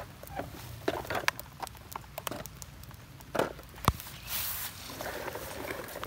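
Footsteps through grass and dry leaves, with irregular rustles and clicks and one sharp click about four seconds in.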